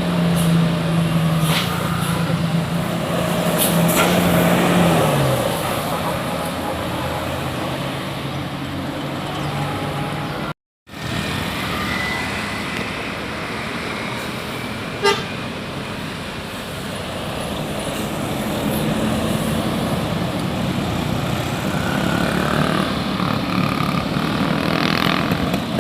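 Road traffic with large vehicles running past and a horn tooting. A low steady tone holds for about five seconds and then slides down. A brief dead-silent gap comes about ten seconds in.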